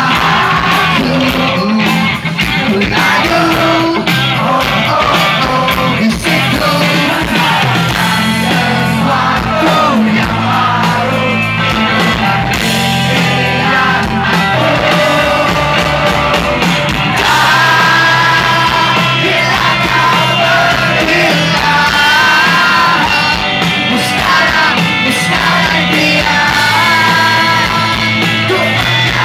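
Live rock band playing loudly with electric guitar and sung vocals, heard from inside the audience.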